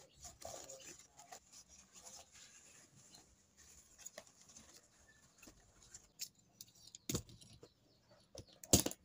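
Banana leaf rustling and crinkling as it is rolled and folded into a cone by hand, then sharp stapler clicks as the folded leaf is stapled, loudest near the end.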